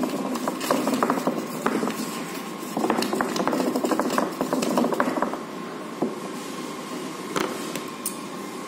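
Thermal receipt paper crackling and rustling as it is wound tightly by hand around a marker pen, with many small clicks. The handling dies down about five and a half seconds in, leaving a few light taps.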